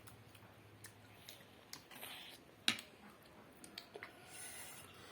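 Quiet eating sounds: scattered small clicks and taps, with one sharper tap a little past halfway and a short hiss near the end.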